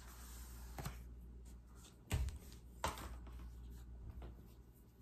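Paper and cardboard packaging handled as a silicone watch band is pulled out of its box: a faint rustle, then a few soft clicks and knocks, the loudest a low thump a little past the middle.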